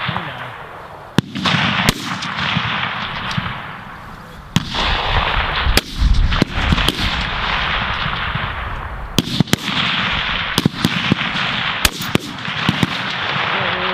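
Rifle shots from a firing line of competition service rifles: more than a dozen sharp cracks at uneven intervals, some only a fraction of a second apart, each followed by a long rolling echo.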